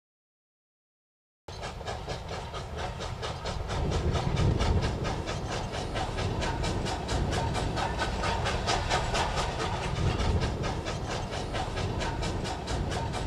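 Steam locomotive running, a quick, even beat over a steady hiss; it starts about a second and a half in.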